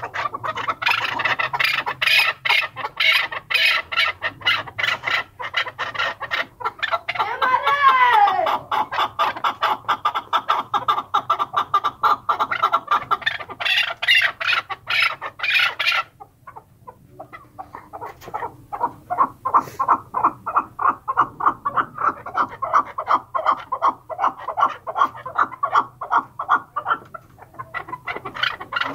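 Chukar partridge calling: long runs of rapid, repeated clucking notes, with a wavering rising-and-falling call about eight seconds in. The calling breaks off abruptly about sixteen seconds in, then resumes more quietly and fades out near the end.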